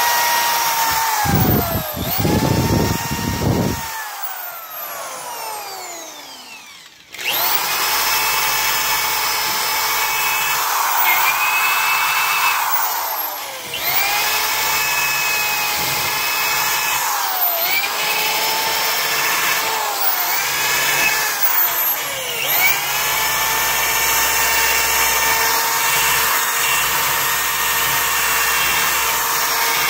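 DeWalt drill with a wheel attachment spinning against a rusty steel axe head, scrubbing off surface rust. The motor whines and winds down about five seconds in, then starts again and keeps running, with several short slow-downs and spin-ups as the trigger is eased and squeezed.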